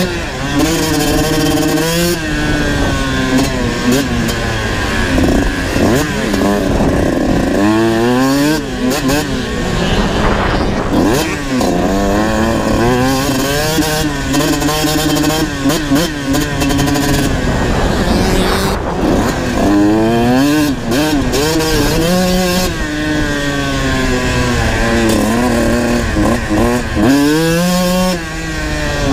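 Kawasaki KX125 two-stroke dirt bike engine under hard riding, its pitch climbing as it revs out and dropping back on each shift or roll-off, many times over.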